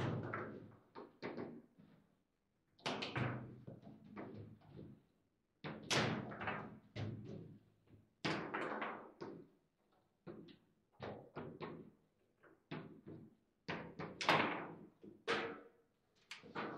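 Table football in play: an irregular run of sharp clacks and knocks from the hard ball, the plastic figures and the rods, with a few louder slams every few seconds.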